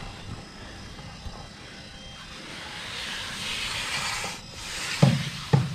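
Steel hand trowel stroking along a wet cement-and-sand mowstrip, making a scraping hiss that builds and then cuts off suddenly. Two dull knocks come near the end.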